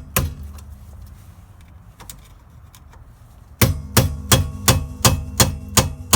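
Hammer blows on steel, knocking out the staked detent of the rear axle nut. A quick double knock comes at the start, then from a little past halfway a steady run of hard strikes, about three a second, each one ringing.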